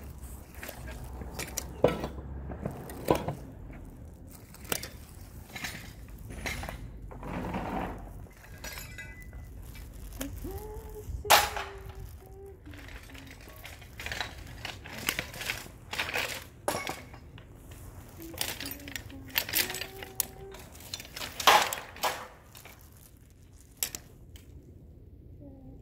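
Irregular metallic clinks, clicks and scrapes of hand tools on an air-conditioning unit's hoses and metal pipes, with a few sharp louder knocks.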